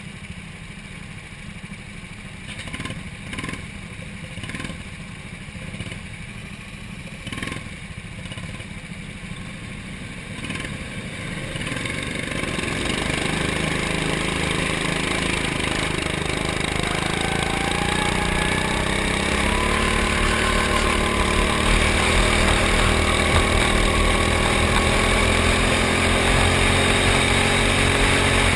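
Go-kart engines idling, with a few short knocks, then a little under halfway through the onboard kart's engine revs up and keeps running hard as the kart pulls away, its pitch rising and falling with the throttle.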